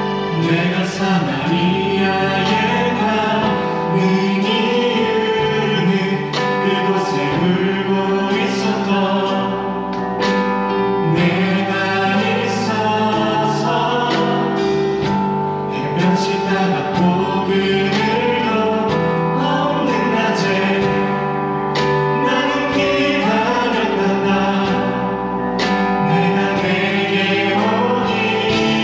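Live contemporary worship song: a church praise team singing to keyboard accompaniment.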